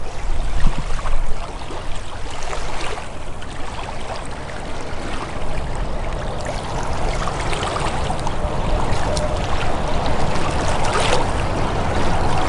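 River water rippling and moving along the bank, with wind rumbling on the microphone, strongest in the first second and a half.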